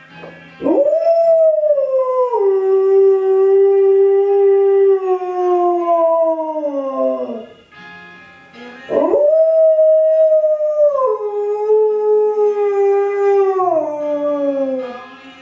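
Alaskan Malamute howling along to music: two long howls, each rising quickly at the start, holding, then stepping down and sliding lower at the end, with a short gap between them about halfway through. A song plays faintly underneath.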